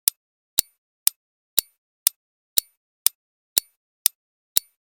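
Quiz countdown-timer sound effect ticking steadily, about two sharp ticks a second, marking off the seconds left to answer.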